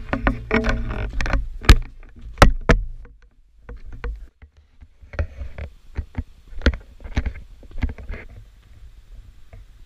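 Irregular sharp knocks and scuffs close to the microphone, with a low rumble under them for about the first three seconds that then drops away.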